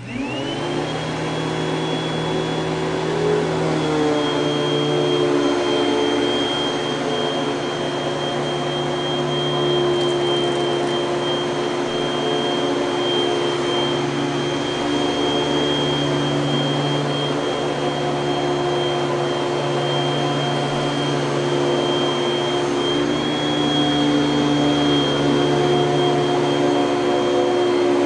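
1984 Panasonic Jet-Flo MC-5116 upright vacuum cleaner switched on: its motor whines up in pitch within about a second, then runs steadily with a high whine over a low hum. Its fan has been rebalanced after being set improperly, though the balance is not perfect.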